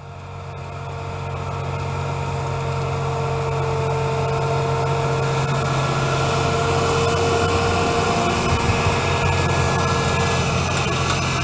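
John Deere 7280R tractor's diesel engine running steadily under load as it pulls a Horsch Pronto seed drill through the soil, with a steady higher whine over it. The sound fades in over the first couple of seconds.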